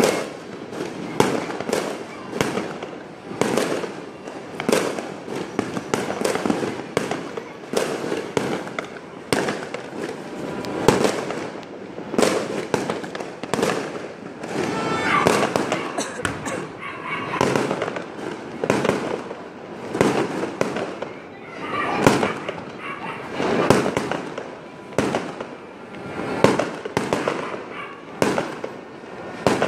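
An aerial fireworks display: a steady string of shell bursts, about one or two bangs a second, with crackle between them.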